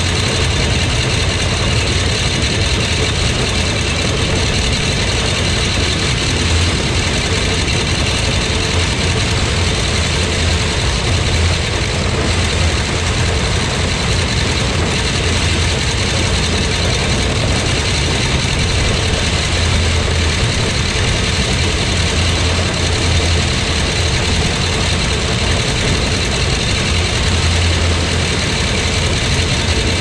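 Tractor engine running steadily under load while towing an Allis-Chalmers All-Crop 60 pull-type combine harvesting soybeans, the combine's machinery running close by. A loud, even drone with a strong low hum that holds throughout.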